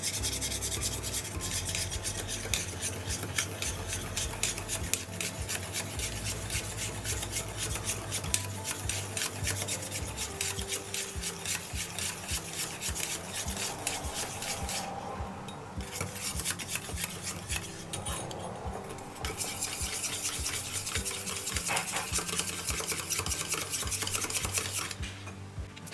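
A wire whisk beating egg yolk and oil in a small stainless steel bowl: a rapid, steady scraping of metal wires against the metal bowl. The oil is being beaten in little by little to emulsify it, as for mayonnaise. The whisking pauses briefly twice in the second half and stops shortly before the end.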